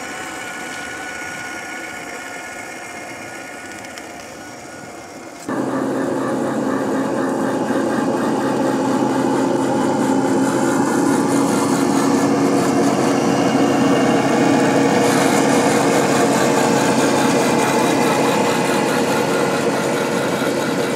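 Radio-controlled scale crawler trucks running on a dirt trail, a steady mechanical hum from the drivetrain. About five and a half seconds in, the sound jumps suddenly to a louder, steady hum as the eight-wheeled CrossRC BC8 Mammoth takes over.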